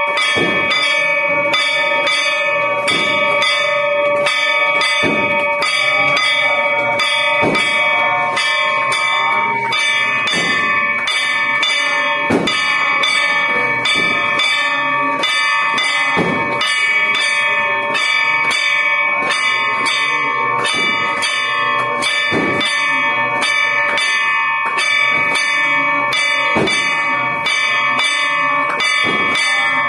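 A hanging metal temple gong struck over and over with a stick in a fast, even rhythm, its ringing tones sustained and overlapping between the strokes.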